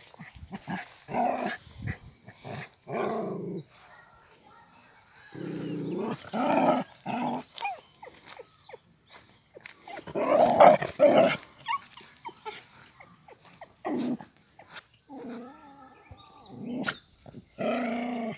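Dog barking and growling in repeated bouts, some brief and some drawn out over a second, with short quiet gaps between them.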